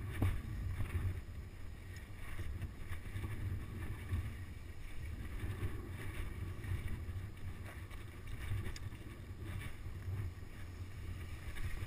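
Wind buffeting the microphone: a low, gusty rumble with a few faint knocks.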